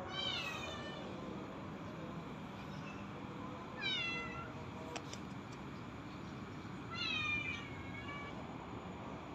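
Black-and-white cat meowing three times: short calls near the start, about four seconds in and about seven seconds in, each falling in pitch.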